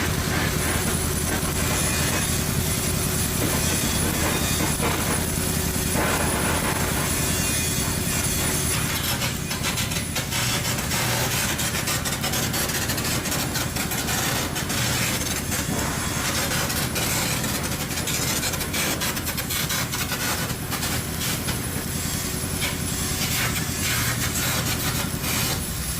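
Flux-cored arc welding (FCAW) laying a cap pass on pipe: the arc's steady crackling sizzle with a low hum underneath.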